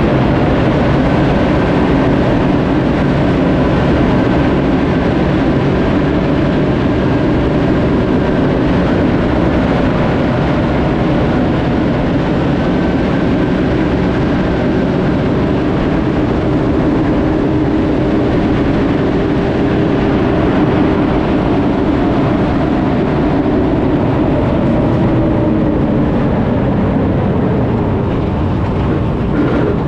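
A 1941 Universal Carrier on the move: its Ford flathead V8 engine running steadily under way, with a dense mechanical clatter from the tracks and running gear. The engine note rises and falls gently and eases slightly near the end as the carrier slows for a corner.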